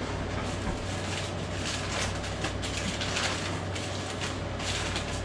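Newspaper wrapping rustling and crinkling by hand in irregular bursts as a package is unwrapped, over a steady low hum.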